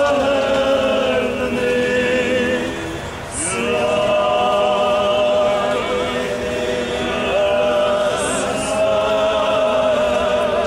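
A group of male voices chanting a slow Byzantine-rite funeral hymn in long held notes, with a short break for breath about three seconds in.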